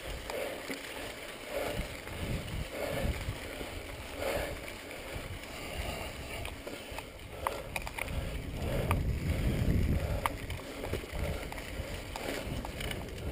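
Mountain bike riding fast down a dirt singletrack: wind rushes over the microphone and the tyres run on the dirt. Now and then the bike gives a brief click or rattle.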